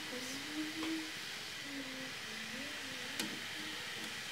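Steady hiss of a steamer pot, with a single light clink about three seconds in as a ceramic bowl is set onto the perforated metal steamer tray.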